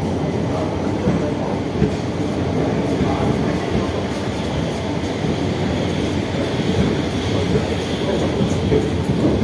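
Passenger express train rolling along the platform, a steady rumble with its wheels clattering over the rail joints.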